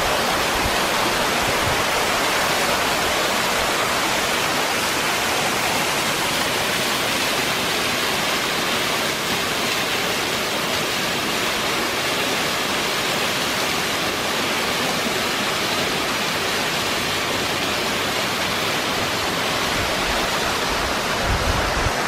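A 60 m waterfall's water crashing down, a loud, steady rush heard close to the falling water and spray. Near the end, low gusts of wind buffet the microphone.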